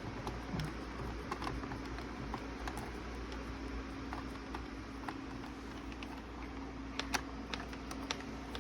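Small scattered clicks and taps of a screwdriver working a screw into the figure's plastic body, with two sharper clicks about seven seconds in, over a faint steady hum.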